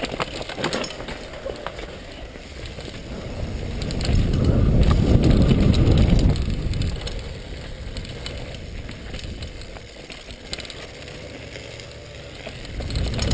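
Downhill mountain bike rattling over a rough trail, with clicks and clatter from the chain and frame and the hum of the tyres, heard from a helmet camera. A loud low rush of wind on the microphone swells from about four to six and a half seconds in as the bike speeds across an open slope.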